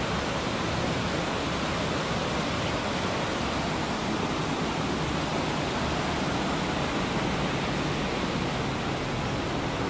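Steady, even rush of running water from an underground cave stream.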